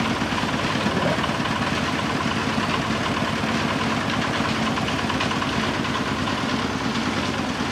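An engine running steadily at an even speed, with a fast, regular pulsing to its sound.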